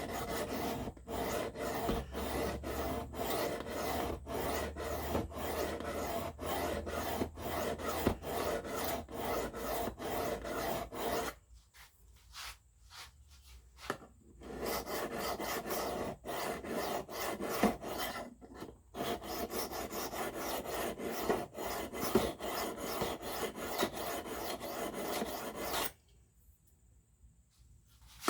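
Steel knife blade stroked across a sharpening stone in a steady rhythm of about two rasping strokes a second, with two short pauses, one a little before the middle and one near the end. The S35VN blade is being edge-led at about 15 degrees per side to set the bevels back on after chip removal.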